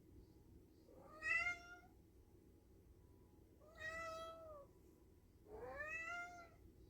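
A cat meowing three times: about a second in, near the middle, and near the end, each meow under a second long and rising in pitch before levelling off. The first meow is the loudest.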